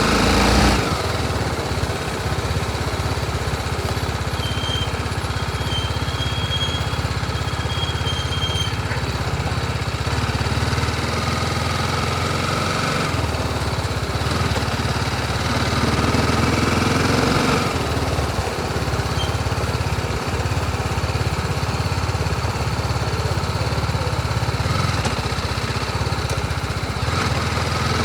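BMW G 310 RR motorcycle's single-cylinder engine running steadily, its level almost unchanged throughout, with slight swells in the middle.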